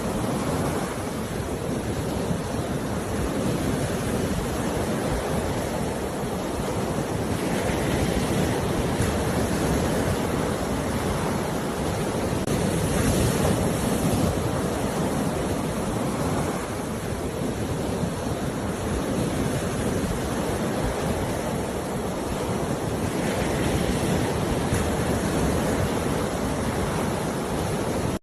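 Sea waves washing onto the shore in a continuous surf, swelling every few seconds as each wave breaks.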